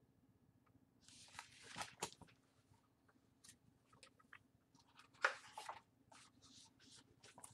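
Pages of a large hardcover picture book being handled and turned: paper rustling in two short bursts, about a second in and again about five seconds in, with small taps and clicks between.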